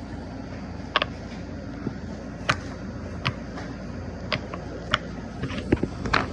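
Sharp plastic clicks from a dinosaur fidget-toy puppet being worked, about eight of them at uneven intervals of roughly a second, bunching together near the end, over a steady low hum.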